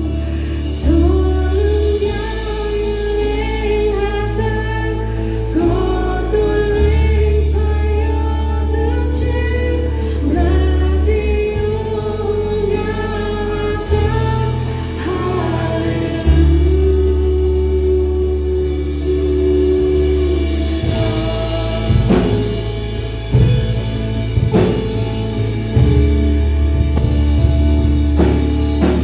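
Live worship band playing a gospel praise song: singing over keyboard and guitars with a steady bass, and drum hits joining about two-thirds of the way through.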